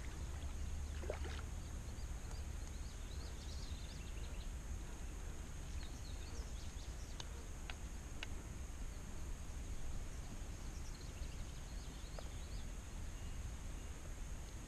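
Steady outdoor ambience at the water's edge: a low wind rumble on the microphone and a steady high hiss, with faint scattered chirps. A brief small splash comes about a second in.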